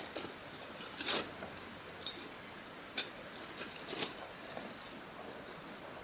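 Metal tent pegs clinking against one another as they are picked through by hand: several sharp clinks, one ringing briefly.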